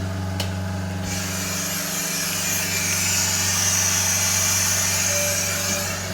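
A steady low hum of an idling engine, with a hiss starting about a second in and running for about five seconds.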